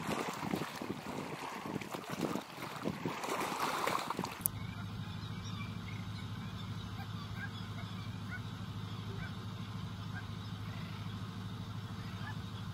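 Small waves lapping and washing along a mangrove shore, with gusts of wind on the microphone. About four and a half seconds in this cuts off abruptly to a steady low hum, with faint, scattered high chirps over it.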